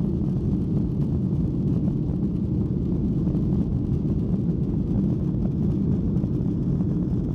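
Steady, low-pitched cabin noise of a Boeing 737-900 in its climb after takeoff: the CFM56-7B jet engines and rushing air heard from inside the cabin, even and unchanging throughout.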